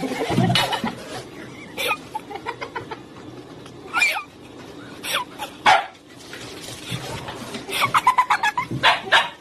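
A Siberian husky giving short barks and yelps, one sliding down in pitch about four seconds in, with a quick run of calls near the end.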